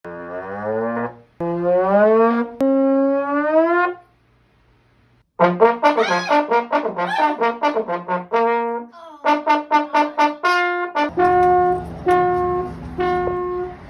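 A brass instrument played as comic sound effects: a few notes that slide upward, a short pause, then a fast run of short staccato notes, ending with three short repeated notes.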